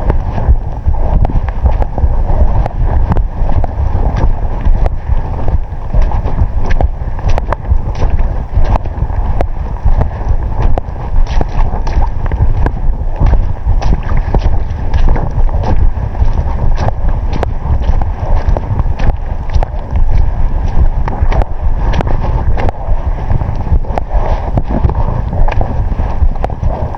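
Strong wind buffeting the microphone: a loud, steady low rumble with constant crackling.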